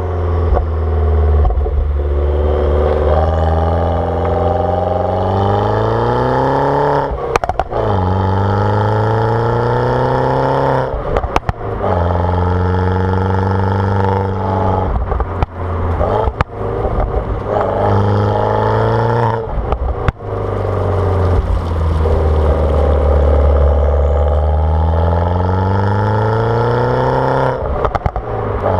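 Turbocharged four-cylinder N14 engine of an R56 Mini Cooper S with a JCW tuning kit, JCW exhaust and no catalytic converter, pulling hard up through the revs several times. Each pull breaks off with a sudden drop in pitch and sharp crackles and pops from the exhaust.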